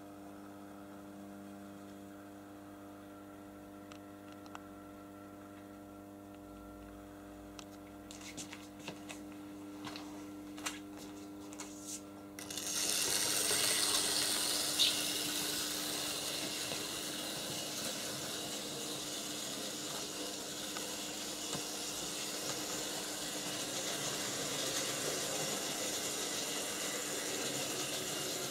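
Märklin model steam locomotive of class 050 running on the layout's track. First a steady hum with a few clicks, then from about twelve seconds in a louder, even rattle and whirr of the motor and wheels on the rails as it runs by.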